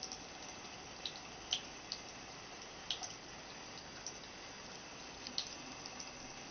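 Bathroom faucet running a thin trickle of water into the sink basin: a steady soft splashing hiss, with a sharp drip-like tick every second or so at irregular intervals.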